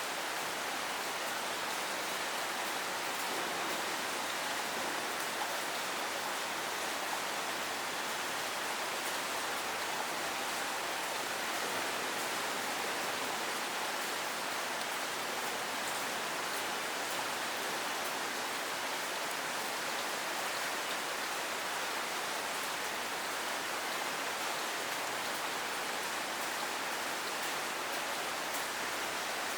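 Steady rain falling and pattering on surfaces, an even hiss of many drops with no change in strength.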